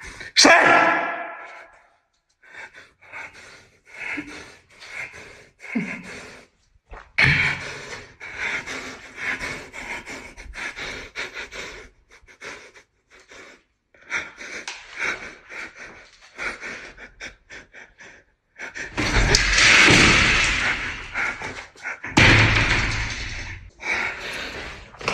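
A man panting and breathing heavily in short, uneven breaths, with a falling voiced sigh about half a second in and two longer, louder bursts of breath near the end.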